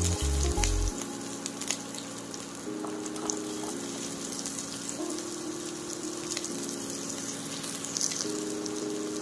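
Chopped onions, garlic and green chillies sizzling in hot oil in a wok, with a steady fine crackle and scattered small pops, and a few low bumps in the first second as the onions go in. Soft background music with held notes runs underneath.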